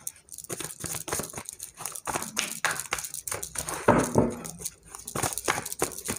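A tarot deck being shuffled and handled by hand: a dense, irregular patter of card-on-card clicks and rustles, loudest about four seconds in.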